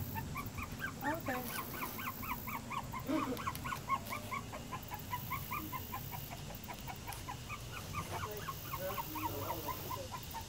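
An animal's rapid, even series of short high calls, about five or six a second, running on without a break, with a few lower sliding cries among them around a second in and again near the end.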